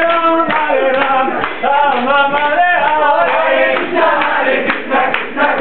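Devotional kirtan: a crowd of voices singing a chant together, with hands clapping along.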